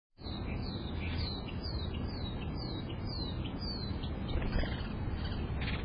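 A bird singing a run of repeated clear down-slurred whistles, about two a second, fading after about four seconds, over a steady low background rumble.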